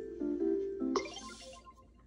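Electronic jingle from a LEGO Super Mario interactive figure's speaker: a quick run of short beeping notes, then a bright chime about a second in that rings out and fades.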